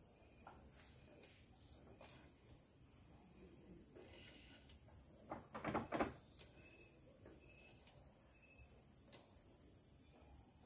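Crickets chirping steadily and faintly. About halfway through, a short cluster of clicks and knocks as the lathe chuck holding the cylinder head is grabbed and turned by hand.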